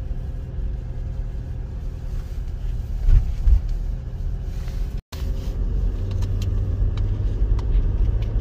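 Steady low rumble of a moving car's engine and tyres, heard from inside the cabin. There are two low thumps a moment apart about three seconds in, and the sound cuts out for an instant about five seconds in.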